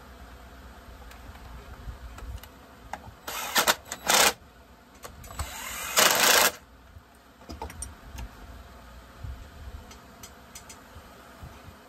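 Cordless drill-driver running in short bursts while driving screws into a chainsaw: two quick runs a little over three seconds in, then a longer run that builds up and peaks about six seconds in. Light clicks of parts being handled come before and after.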